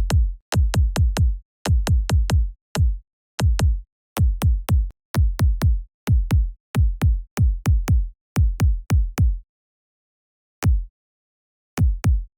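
Electronic kick drum playing alone in an uneven pattern: short deep thumps, each with a sharp click at the start and a quickly falling pitch, mostly in quick groups of two or three with dead silence between. The hits stop about nine and a half seconds in, then a few more come near the end.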